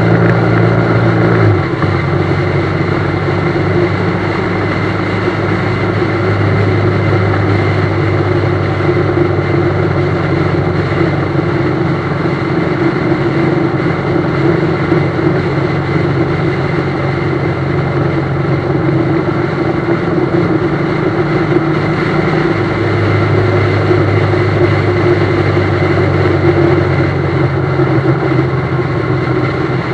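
Loaded BMW GS motorcycle's engine running at a steady road speed, with heavy wind and road noise. The engine note drops about a second and a half in and climbs again near the end.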